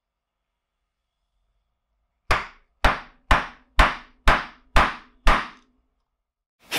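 Seven sharp, evenly spaced percussive hits about half a second apart, each with a short ringing tail, then one more hit near the end.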